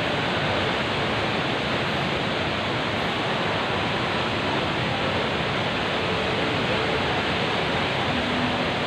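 Indoor waterfall of the HSBC Rain Vortex pouring steadily into its basin: an even, unbroken rush of falling water.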